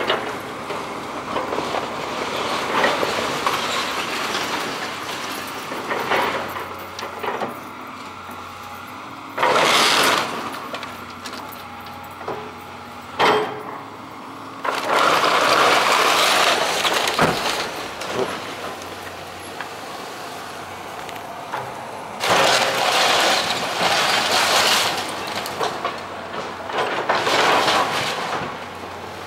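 Excavator demolishing a shingled wooden roof: repeated bursts of crunching, cracking and breaking wood and roofing over the machine's steadily running engine, the loudest crashes coming in long stretches past the middle and near the end.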